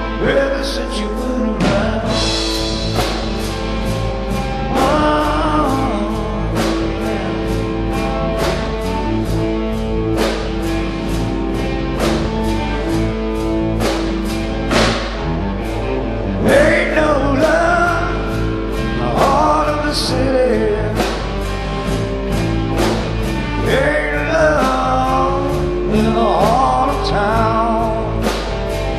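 A live rock band playing: drum kit, electric guitars and bass, with a steady drumbeat under held guitar chords. Sung lines with a wavering pitch come in over it in the second half.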